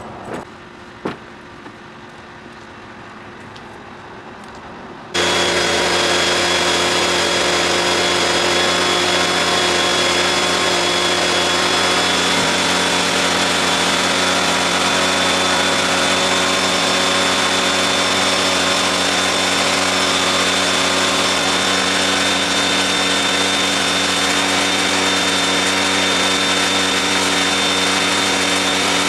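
A motor-driven machine switches on abruptly about five seconds in and runs at a perfectly steady speed, with a constant hum and a high whine.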